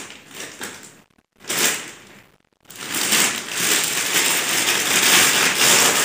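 Clear plastic wrapping crinkling and rustling as it is handled on an air rifle, with two short breaks in the first three seconds, then steady crinkling.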